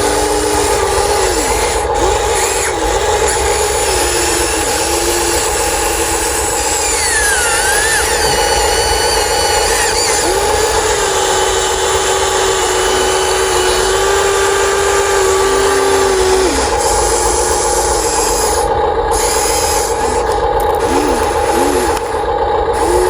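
Huina 1593 radio-controlled excavator working, its small electric motors whining and changing pitch as they start, hold and stop, over a steady mechanical hum.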